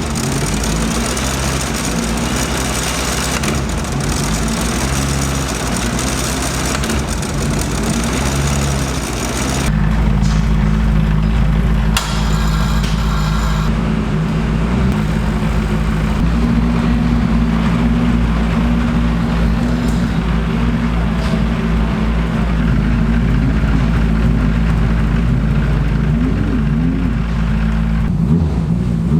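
Praga R1 T race car engine running at low revs, its pitch wavering up and down with small throttle changes. About ten seconds in, the sound abruptly turns duller and heavier in the low end.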